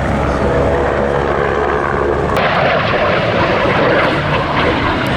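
Propeller aircraft's engine running with a steady drone, changing abruptly about halfway through.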